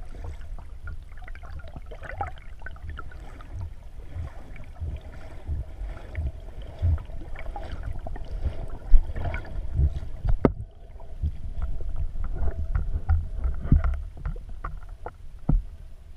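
Water heard through a waterproof camera held underwater: a steady low rumble with irregular sloshes and knocks from a Pembroke Welsh corgi dog-paddling at the surface, with a sharp knock about ten seconds in.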